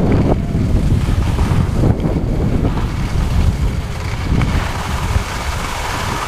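Wind buffeting the camera's microphone while skiing downhill at speed, a steady low rumble, with the hiss of skis sliding over soft spring snow.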